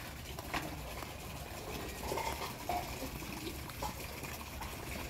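Quiet outdoor ambience beside a pond: a faint steady hiss with a few soft clicks and some faint short tones scattered through it.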